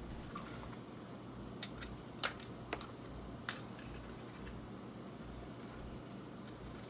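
Handling of a drop-leg holster rig and belt: four sharp clicks and taps in the middle, over a steady low hum.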